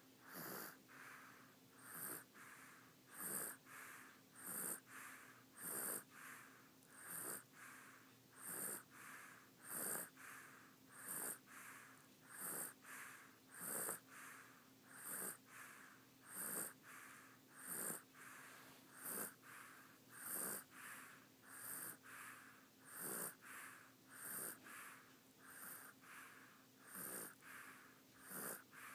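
Sleeping baby snoring softly: a short snore on each breath, in an even rhythm of about one every second and a quarter.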